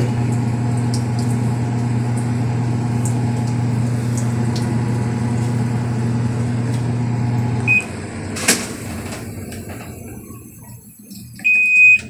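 Whirlpool automatic top-load washing machine running with a steady motor hum, on its newly replaced controller board. About two-thirds of the way in the control panel beeps once and the hum stops, followed by a single sharp click. Near the end the panel gives a longer beep.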